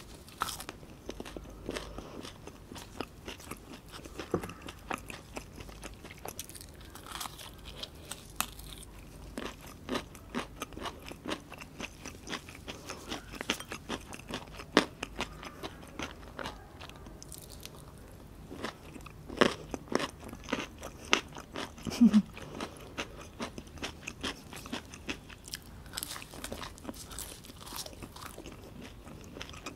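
A person biting and chewing crispy fried food close to the microphone, chips and fried fish: a steady run of crunches and chewing, with a few louder crunchy bites about two-thirds of the way through.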